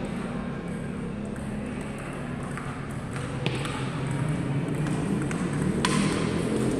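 Table tennis ball being hit back and forth in a rally: a few sharp, separate clicks of the ball off the paddles and the table, over a steady low hum in the hall.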